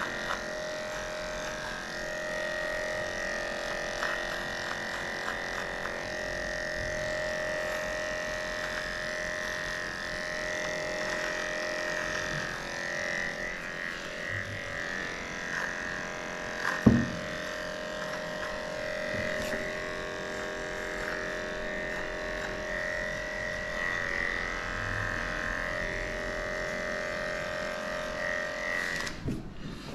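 Cordless electric dog clipper running with a steady hum as it clips a schnauzer's coat around the belly and private area; it switches off shortly before the end. One brief sharp sound about halfway through.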